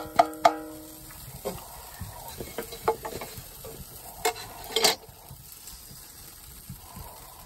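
A metal utensil clinks on a sheet-iron pan in a few quick taps, each with a short ringing note. Scattered clinks and scrapes follow over a light frying sizzle, with two sharper knocks a little past four seconds.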